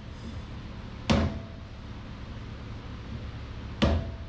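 Two sharp hammer blows on steel, about a second in and near the end, each followed by a brief metallic ring. The hammer is striking a wrench or part on the car's rear coilover shock to break a stuck fastener loose. A steady low shop hum runs underneath.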